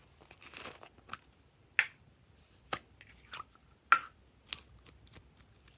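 Red glitter slime being taken out of its cup and handled: a brief rustle in the first second, then a series of about six sharp, sticky clicks and pops as the slime is pulled and squeezed.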